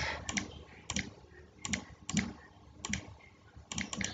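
Samsung Galaxy S20 on-screen keyboard key-press clicks as a word is typed: about a dozen short clicks at an uneven pace, often two or three close together.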